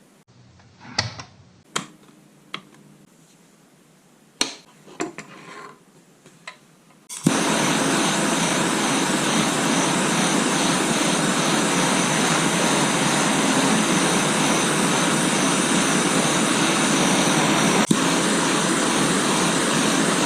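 A few light clicks and clatters of small hardware being handled. About seven seconds in, a loud, steady rushing noise starts abruptly and keeps going, like a blower or large fan running.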